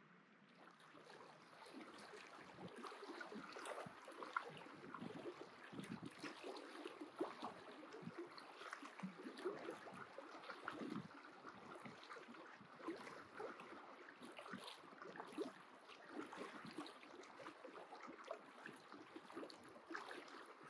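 Faint lapping of small lake waves against shoreline rocks: a soft steady wash broken by many small irregular splashes.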